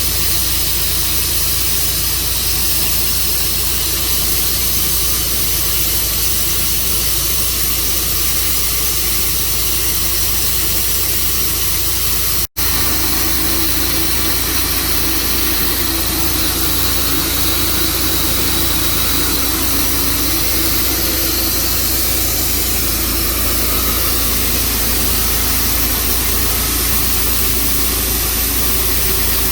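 Tru Cut sawmill running steadily as it saws black walnut, a loud even engine-and-blade noise. The sound cuts out for an instant about twelve seconds in, and the tone shifts slightly after it.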